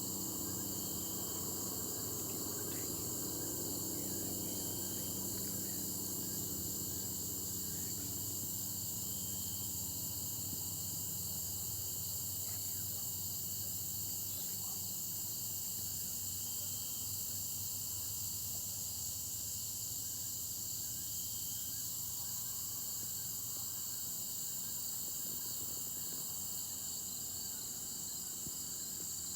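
Steady chorus of crickets and other insects, a continuous high-pitched trilling. A low steady hum fades away over the first half.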